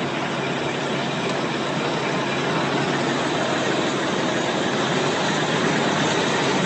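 Forklift engine running steadily, an even engine noise with a low hum.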